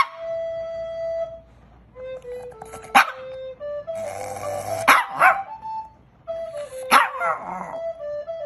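A small dog barking and howling in several short, sharp outbursts, some ending in quick sliding yelps, over a simple melody of steady held flute-like notes.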